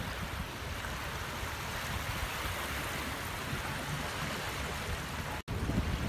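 Small waves washing onto a sandy beach, a steady hiss of surf at the shoreline. The sound drops out for an instant near the end, and low wind rumble on the microphone follows.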